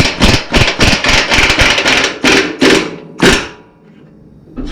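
Hammer blows on metal, a quick run of a dozen or so strikes over about three seconds that then stop, as a front strut assembly is knocked free from the pickup's suspension.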